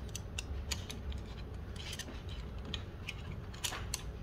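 Small metal adapter being screwed by hand into the centre of a Juki DDL industrial sewing machine's handwheel: scattered light clicks and scrapes of metal on metal, over a steady low hum.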